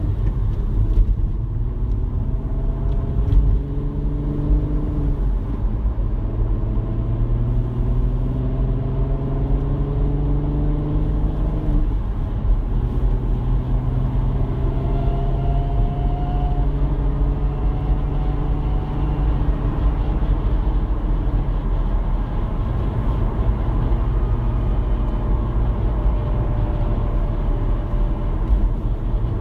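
R32's engine running, showing a strange sound its owner is puzzled by. Its pitch creeps slowly upward and drops back twice in the first dozen seconds, then holds steady over a constant low rumble.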